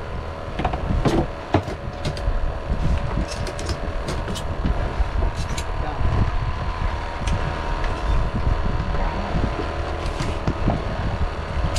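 A boat engine runs steadily, with a low rumble of wind and water under it and scattered sharp clicks.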